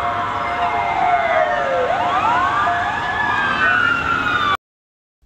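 Police sirens wailing: several overlapping tones glide down and up in pitch, then cut off suddenly about four and a half seconds in.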